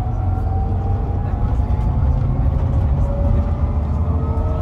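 Scania K440EB coach's inline six-cylinder diesel running under way, heard from on board: a deep steady drone with a thin whine above it that rises, then sits lower about three seconds in.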